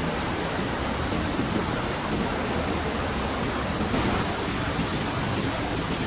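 Steady rushing of water, an even hiss with no single drops or splashes standing out.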